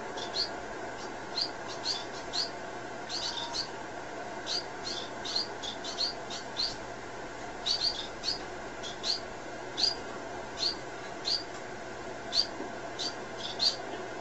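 Small owl giving short, high chirps while its head is stroked, singly or in quick pairs and triples, about two a second.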